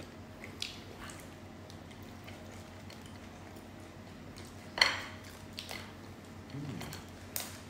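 Eating and handling cooked shellfish at a table: light clicks and taps of crab and prawn shells against plates and utensils, with one sharper click about five seconds in.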